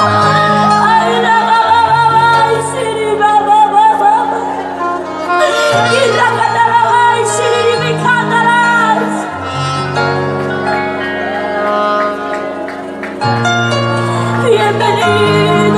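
Live band music: keyboards over held bass notes with a beat, and a woman's singing voice carrying the melody.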